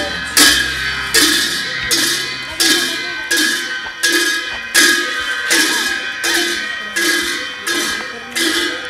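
Steady rhythm of ringing metallic strikes, about three every two seconds, each with a bright ringing decay.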